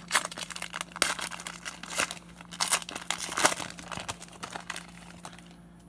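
Plastic wrapper of a 2018 Score football card hanger pack being torn open and crinkled, a quick run of sharp crackles and rustles that dies down near the end.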